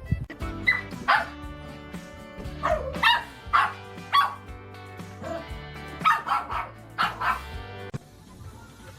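A dog yipping and barking in short, high-pitched calls, about ten in three clusters, over steady background music.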